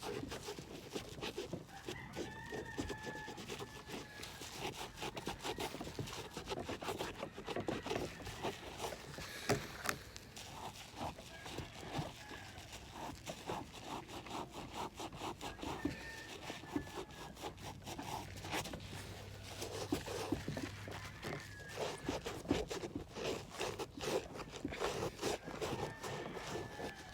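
Irregular scrubbing and rubbing strokes on a leather sneaker being cleaned with soap.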